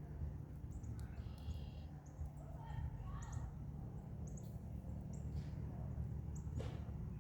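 Campfire burning with a steady low rumble and a few sharp crackling pops in the second half. Birds call in the background, with several short calls in the first few seconds.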